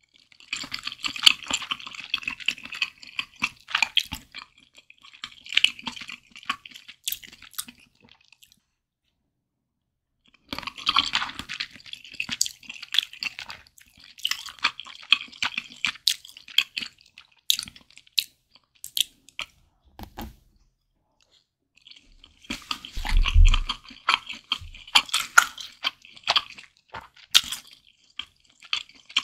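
Close-miked chewing of a mouthful of malatang: wet, crackly mouth sounds in three spells separated by short silent pauses, with a louder low thud about two-thirds of the way through.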